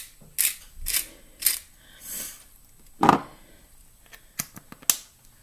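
Hand-twisted pepper mill grinding in short strokes about twice a second, then stopping; a louder knock follows about three seconds in, and a few light clicks near the end.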